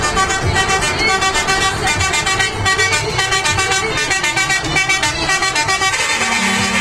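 Truck horns sounding a quick run of changing notes, several pitched tones at once, playing a tune. A steady low tone comes in near the end.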